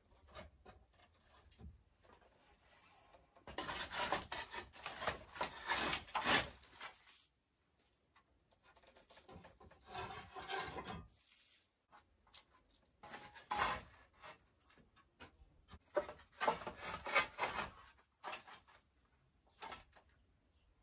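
Dry reed matting scraping and rustling as it is pulled and shifted across wooden roof beams, in several bursts with quiet gaps between; the longest and loudest comes a few seconds in.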